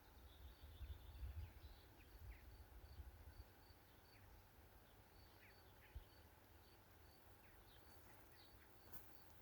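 Near silence: faint outdoor ambience of a high chirp repeating about twice a second, with a few short bird chirps over it. A low rumble is heard in the first few seconds.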